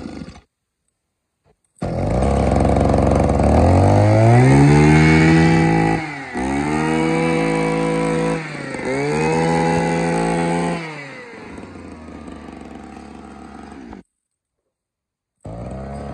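Mitsubishi TU26 26cc two-stroke brush cutter engine revving up to high speed three times, dropping back briefly between, then settling to a steady idle. The sound breaks off abruptly twice.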